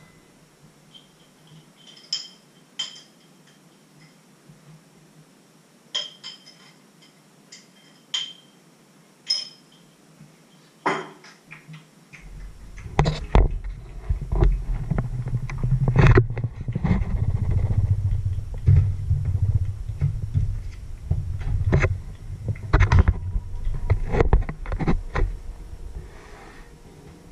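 A few sharp, ringing clinks of glass or crockery. Then, from about halfway through, dull knocking and rubbing right on the microphone as the camera itself is handled.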